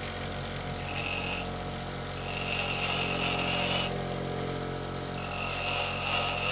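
Bench grinder running with a steady motor hum while a steel drill bit is pressed against the wheel three times, each pass a high, hissing grind: the dull cutting edge of the bit being hand-sharpened.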